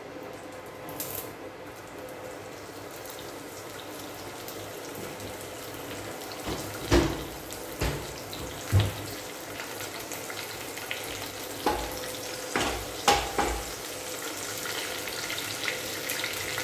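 Curry leaves frying in hot oil in a nonstick pan: a steady sizzle that builds a little, with a few short knocks in the middle.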